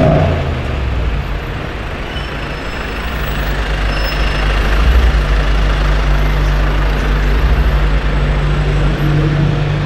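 Busy city street traffic: vehicle engines running and cars passing close by, under a steady low engine drone that gets a little louder about halfway through.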